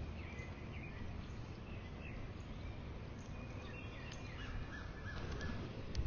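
Wind rumbling steadily on the microphone, with faint, scattered bird chirps.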